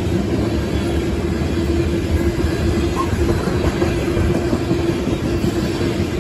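Loaded coal cars of a freight train rolling past a grade crossing: a steady, loud rumble of steel wheels on rail, with a steady tone running over it.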